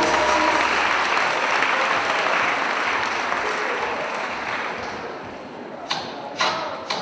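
Audience applauding, the applause fading away over several seconds after the last of the music stops about a second in. Near the end, sharp thumps begin at about two a second.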